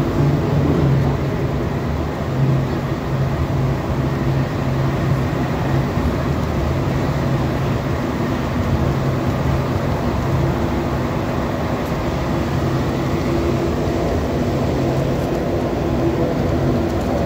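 Rubber-tyred Montreal Metro train running at speed through a tunnel, heard from inside the car: a steady rumble with a low hum.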